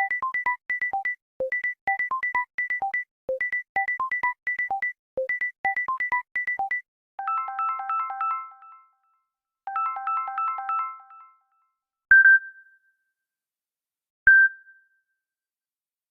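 Samsung Galaxy ringtones and alert tones played one after another. First a quick, repeating figure of short synth notes runs for about seven seconds, then two longer chime phrases follow, and then two single loud ding notes a couple of seconds apart.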